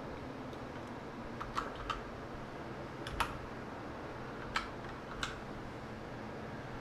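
Computer keyboard keystrokes, a handful of single clicks spaced irregularly over several seconds, over a faint steady room hiss.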